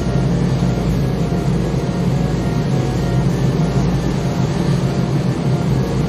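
A boat's engine running with a steady low rumble, under wind and rough-sea noise.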